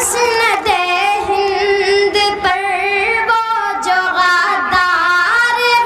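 A boy singing a poem into a microphone in a high voice, holding long, wavering notes.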